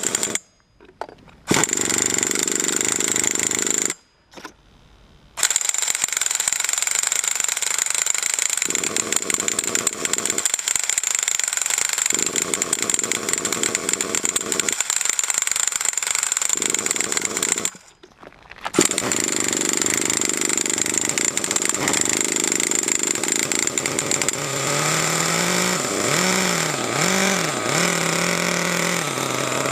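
Small nitro RC engine running with a steady high-pitched buzz, cutting out abruptly three times. Near the end its pitch wavers up and down.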